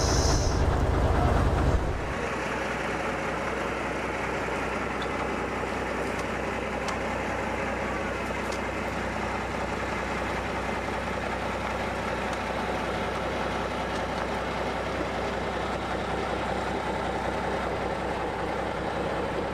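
Safari tour bus engine running steadily as the bus drives along. A louder low rumble in the first two seconds cuts off abruptly, leaving an even drone.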